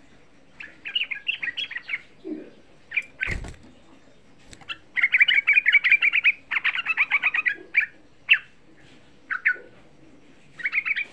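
A young yellow-vented bulbul singing in bursts of quick, rapid-fire notes, with the longest dense run lasting about two and a half seconds near the middle and short phrases after it. A single thump comes about three seconds in.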